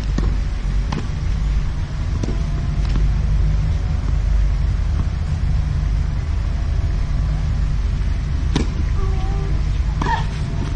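Steady low rumble, like wind on the microphone or distant traffic, with a handful of sharp, separate knocks of a tennis ball on a clay court, the clearest one about eight and a half seconds in.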